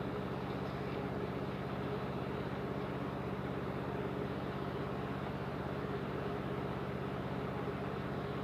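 A motor running steadily with a low, even hum and a fast regular pulse, unchanging throughout.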